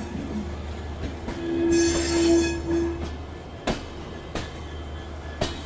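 Passenger train rolling slowly into a station with a steady low rumble. About a second and a half in comes a loud wheel squeal lasting about a second and a half, then a few sharp clanks.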